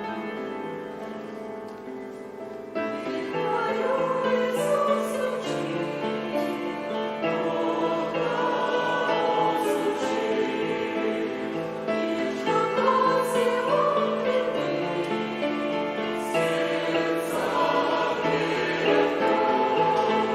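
Choir singing a hymn over keyboard accompaniment; the voices come in after a short instrumental lead-in about three seconds in.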